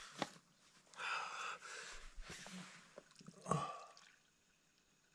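Flat highland barley beer poured from a can into a small cup, a soft trickle with no fizz: the can's pull tab had been partly open and the beer has gone stale. A short, sharp breath comes near the end.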